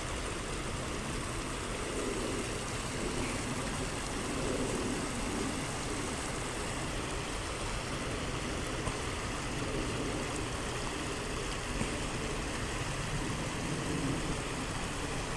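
Steady rush of river water pouring over a low concrete spillway.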